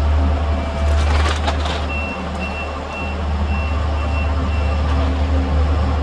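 Kubota SVL65-2 compact track loader's diesel engine running steadily under load, with a crunch of breaking wood and debris about a second in as the grapple works the garage. Then its reversing alarm beeps six times, about two beeps a second, as it backs away.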